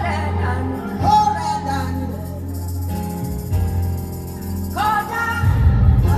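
Gospel worship song with a steady bass, sustained keys, a tambourine and a vocal singing long held notes.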